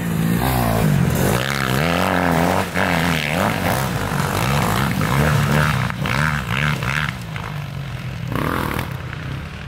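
Several motocross bikes revving hard as they climb a sandy track, engine pitch rising and falling with the throttle and gear changes. The engines are loudest for the first seven seconds or so, then somewhat quieter as the bikes move off.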